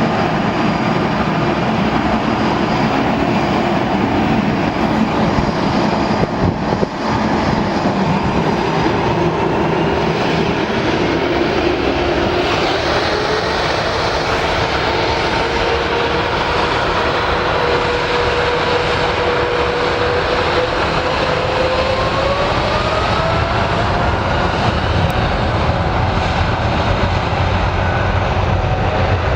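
Boeing 777-300ER's twin GE90-115B turbofans at takeoff power: a loud, steady jet roar with a whining tone that slides upward about three quarters of the way through.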